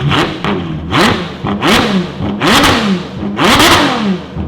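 Ferrari F12's V12 blipped hard five times, each rev rising and falling sharply in pitch, through a near straight-pipe exhaust of downpipes and chopped-up stock piping. Ungodly loud, a screaming V12.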